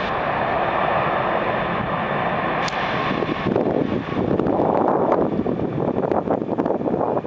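Boeing 747-400 LCF Dreamlifter's four jet engines at takeoff power, heard from behind as it rolls away down the runway: a steady rushing noise that turns rougher and uneven about halfway through.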